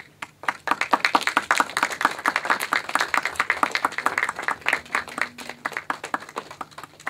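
Audience applauding, many hands clapping at once, starting right away and tailing off near the end.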